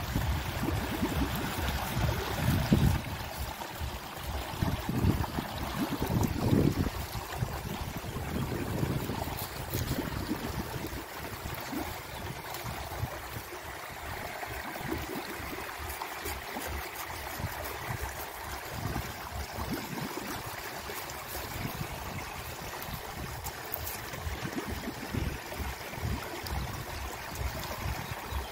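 Steady rush of running water, with low rumbling bumps during the first seven seconds or so.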